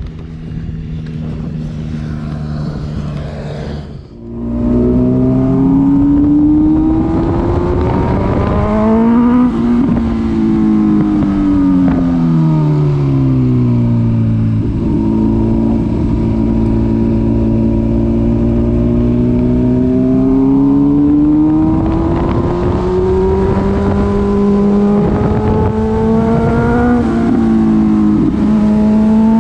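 Honda CB1000R's inline-four engine heard from the bike: running steadily for a few seconds, then after a brief dip it pulls hard with its pitch rising. It eases back, then climbs slowly again, with a quick break in the note near the end like a gear change.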